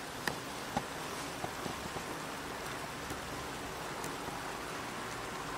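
Water boiling hard in a pot with instant noodles cooking in it: a steady bubbling hiss with a few small pops.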